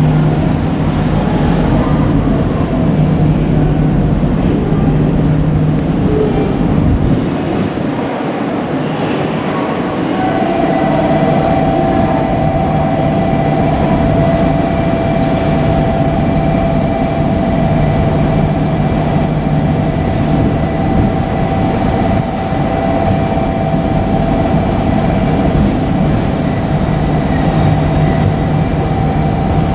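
JR Kyushu KiHa 200 diesel railcar running, its engine humming steadily under a continuous rumble. About ten seconds in, a steady high squeal from the train joins and holds.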